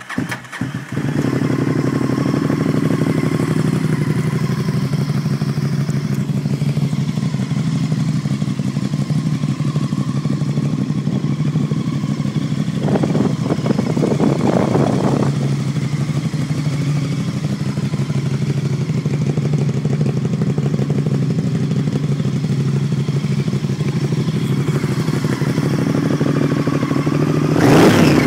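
Honda VTR1000F Superhawk's 90-degree V-twin, breathing through gutted and shortened stock mufflers, catches in the first second and settles into a steady, loud idle. It picks up briefly about halfway and is revved near the end.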